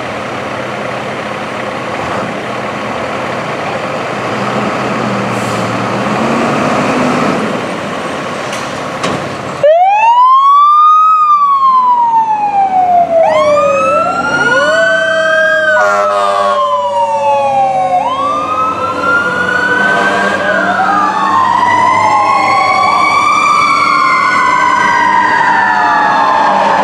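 Fire apparatus diesel engines running steadily at the station. About ten seconds in, a fire engine siren starts suddenly, wailing with a quick rise and a slower fall, and a short horn blast comes a few seconds later. Soon after, a second siren joins and the two wails overlap as the engine and ladder truck respond.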